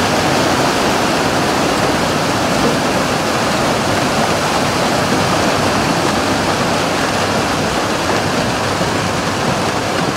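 Steady rush of churning water, thick with the splashing of hundreds of leaping Asian carp around a boat.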